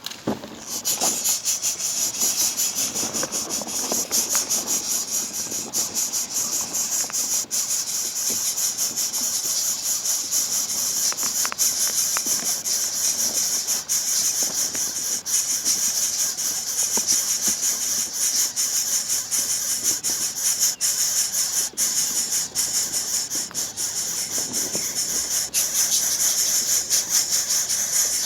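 A steady, high, rapidly pulsing buzzing hiss that runs on without a break.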